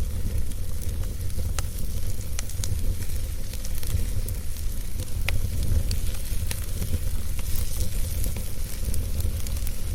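Wood fire burning in a fireplace: a steady low rumble and hiss with scattered sharp pops and crackles.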